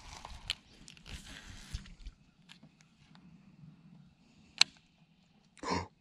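Quiet handling noise from a baitcasting rod and reel: scattered clicks and rustles, a single sharp click about four and a half seconds in, and a short louder rustling burst near the end.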